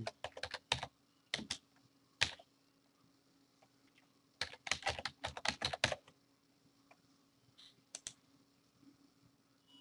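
Typing on a computer keyboard: a few scattered keystrokes in the first two seconds, then a quick run of keystrokes between about four and six seconds in, and a couple of single clicks near the end.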